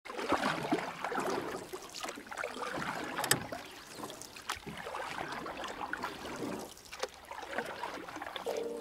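Water sloshing and lapping: an uneven rush broken by irregular sharper splashes. Music comes in near the end.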